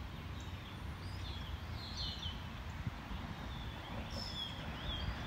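Songbirds chirping repeatedly, short high calls scattered throughout, over a steady low rumble.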